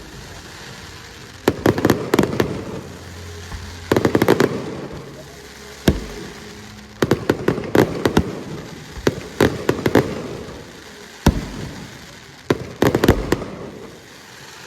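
Fireworks display: shells bursting in quick clusters of sharp bangs and crackles, a new volley every second or two, each one trailing off before the next.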